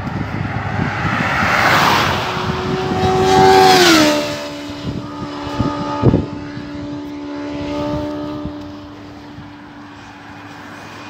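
Vehicles passing at highway speed, the tyre and engine noise swelling and fading twice. As the second one goes by, about four seconds in, a whine drops in pitch, then holds and slowly fades. A short thump comes about six seconds in.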